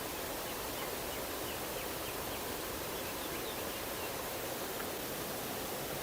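Waterfall: steady rushing water noise, with a short run of faint high chirps in the first half.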